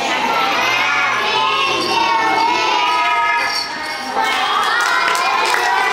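A group of preschool children singing a song together, with a short break about two-thirds of the way through before the singing picks up again.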